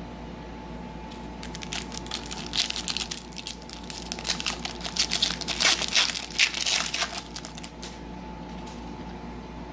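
Foil wrapper of a trading-card pack crinkling and crackling as it is handled and torn open: a run of dense, crackly rustles starting about a second and a half in and stopping about two seconds before the end.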